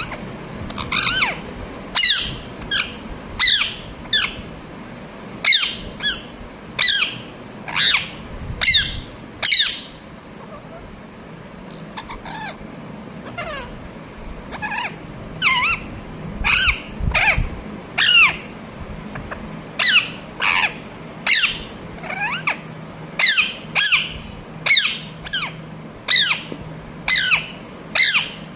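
A parrot calling over and over in short, sharp squawks, each a quick downward-sweeping chirp, about one or two a second; the calls thin out and grow fainter for a few seconds midway, then resume at the same pace.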